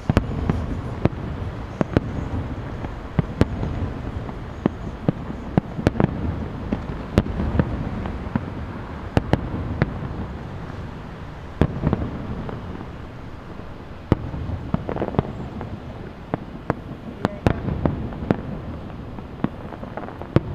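Aerial fireworks shells bursting in quick, irregular succession: many sharp bangs over a continuous low rumble.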